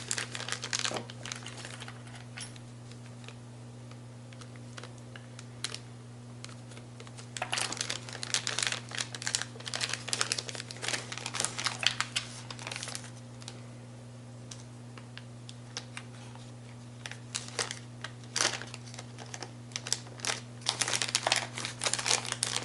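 Parts packaging crinkling and rustling as it is opened to take out a new gearbox synchro ring, in bursts with a quieter stretch of several seconds in between. A steady low hum runs underneath.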